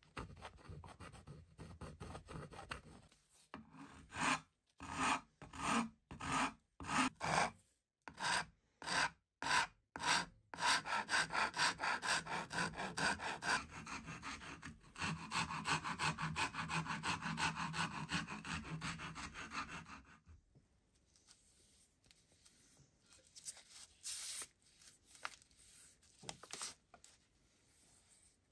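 A hand file stroking a wooden hammer handle held in a vise. There are separate strokes at first, then a quick run of steady back-and-forth strokes. Before it comes faint scratching of a pencil marking the wood, and after it faint brushing as a brown finish goes on.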